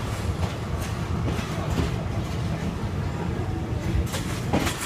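Passenger train rolling slowly out of the station, heard from aboard the carriage: a steady low rumble with wheels clacking over rail joints and points, a cluster of sharper clanks about four seconds in.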